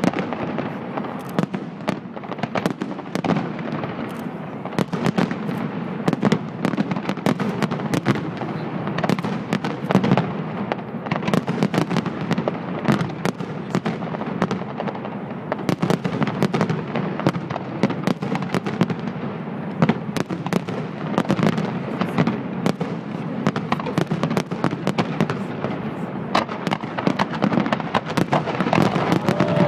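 Fireworks display: a dense, continuous barrage of crackling and popping shells with frequent louder bangs.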